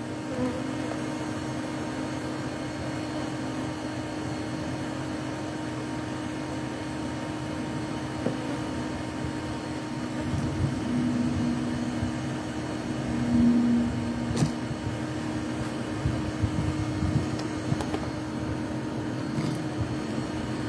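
Honeybees buzzing over a steady background hum, with a louder single-pitched buzz passing close twice near the middle, and a few light knocks.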